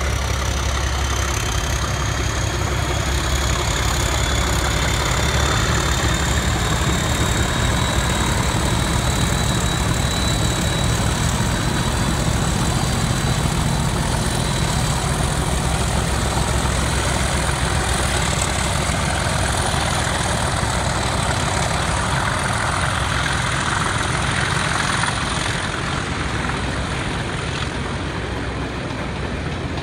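Two Class 37 diesel locomotives' English Electric V12 engines working hard as they pull away, a deep rumble with a rising turbocharger whistle over the first several seconds. The engine sound eases a little near the end as the coaches roll past.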